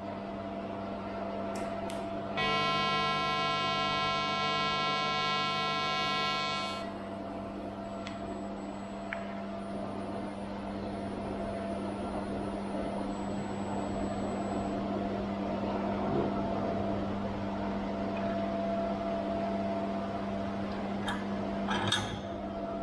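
TIG welding arc on stainless steel tube: a pulsed arc giving a steady electric buzz for about four seconds, starting about two seconds in, over the welding machine's constant hum and hiss. A couple of light clicks come near the end.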